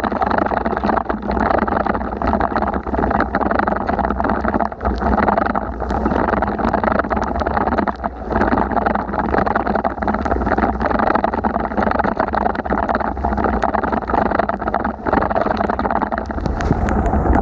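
Steady rushing of wind on the microphone and wet road noise from a bicycle ridden through heavy rain, with scattered small clicks.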